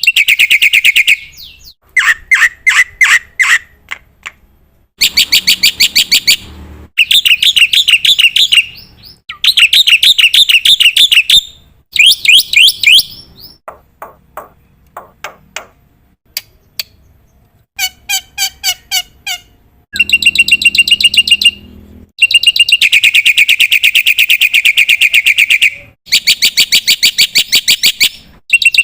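Black-winged myna (jalak putih) in full song: loud chattering phrases of fast repeated notes, each lasting a second or two, broken by short pauses, with a stretch of slower, sparser notes midway.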